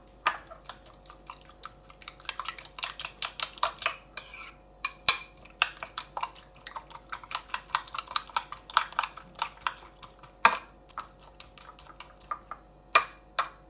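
Metal spoon beating a raw egg mixture in a ceramic bowl, clinking against the bowl in runs of quick strokes, with a few louder knocks.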